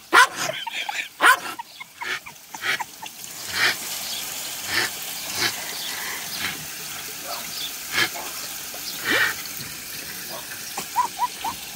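A garden hose spray hisses steadily while a dog bites and gulps at the water stream, with sharp snaps in the first two seconds and a few short, high cries near the end.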